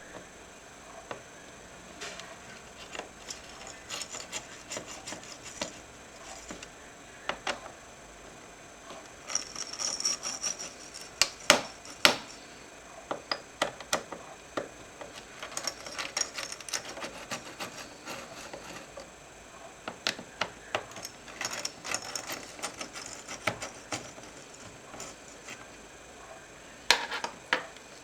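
Hands working on a laptop's plastic and metal parts with small tools: irregular clicks, taps and short scraping, with a few louder sharp clicks about midway and near the end.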